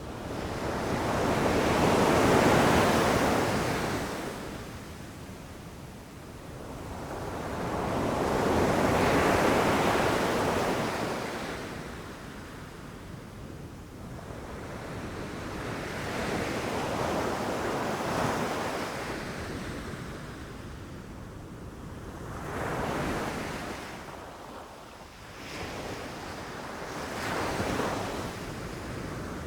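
Ocean waves breaking and rushing up the shore, coming in slow surges that swell and fade every several seconds. The first two surges are the loudest; the later ones are smaller and shorter.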